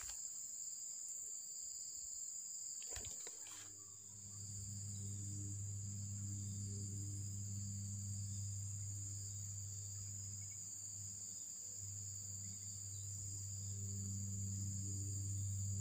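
Steady, high-pitched drone of insects. A few clicks come about three seconds in, and a low steady hum joins about four seconds in.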